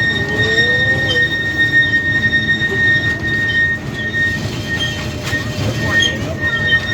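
Tourist train's wheels squealing loudly against the rails: one steady high-pitched squeal with short breaks a little past the middle, over the low rumble of the moving cars.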